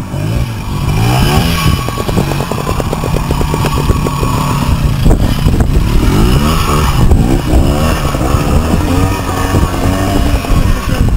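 Vintage two-stroke trials motorcycle climbing a rocky slope, the engine revving up and falling back again and again as the rider picks through the rocks. A few sharp knocks come about five and seven seconds in.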